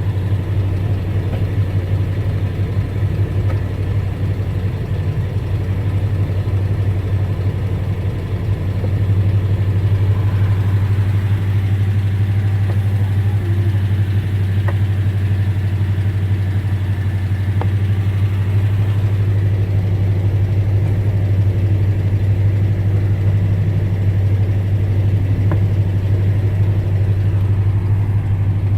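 1987 Jeep Grand Wagoneer's AMC 360 V8 idling with a steady low hum, growing slightly louder about nine seconds in.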